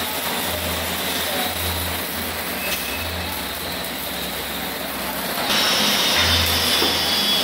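Steady hiss and crackle of arc welding with a low hum that comes and goes. About five and a half seconds in it gives way to a louder steady noise from the welding machines, with two high whining tones.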